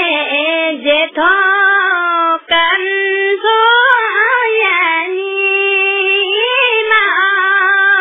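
A single high voice singing unaccompanied, holding long, wavering notes with brief pauses for breath about one and two and a half seconds in.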